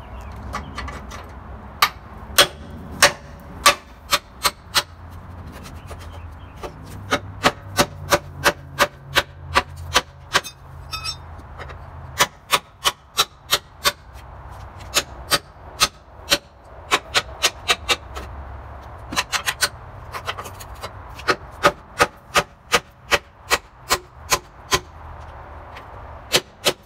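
Hammer blows on a steel truck frame, knocking off leftover skip welds. The sharp metallic strikes come in runs of about two or three a second, with short pauses between runs.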